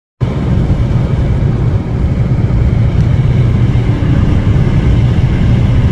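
Car travelling: a loud, steady rumble of road and wind noise. It starts abruptly just after the opening.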